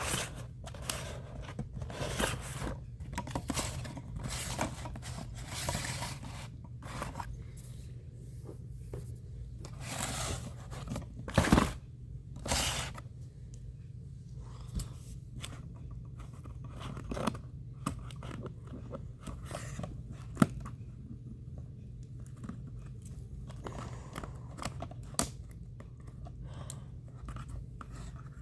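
Toy packaging being opened by hand: irregular scraping, tearing and crinkling of cardboard and plastic, with a louder stretch about eleven seconds in and a sharp click about twenty seconds in.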